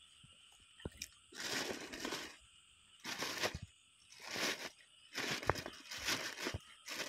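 Plastic bag rustling and crinkling in four or five bursts as it is pushed down into a woven bamboo basket.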